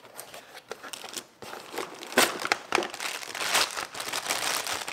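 Clear plastic wrapping crinkling and rustling as a small wrapped item is pulled from a cardboard box and handled. A few light clicks at first, then steady crinkling from about two seconds in.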